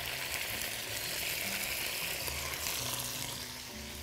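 Thin strips of chicken sizzling steadily in hot oil in a wok, searing just after being dropped in. The sizzle eases slightly near the end.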